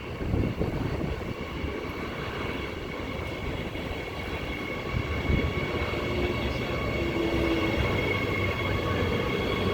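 Six-car Transperth electric multiple-unit train pulling into the platform, with a steady whine from its electric equipment over the running rumble. Gusty wind buffets the microphone throughout.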